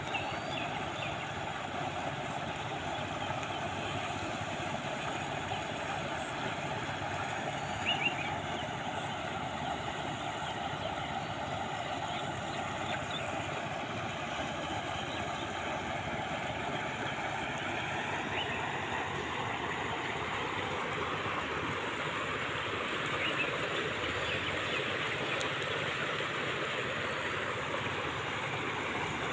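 Water rushing and foaming through a narrow gap between grassy banks, a steady rushing noise, with a few faint chirps on top.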